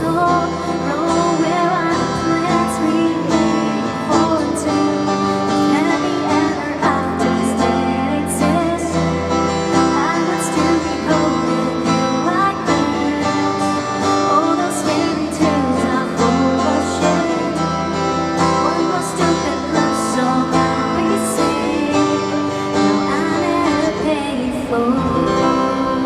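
Live pop-band music with guitar and a singing voice over a regular beat.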